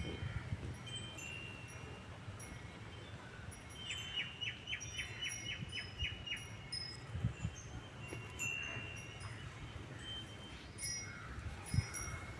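Birds chirping in scattered short calls, with one bird giving a fast trill of about ten quick descending notes near the middle. A few low thumps are heard along with it.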